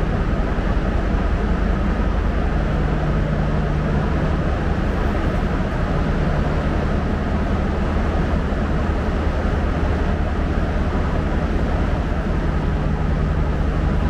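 Steady, loud drone of a standing passenger train, its power van's diesel generator running, with a constant low hum.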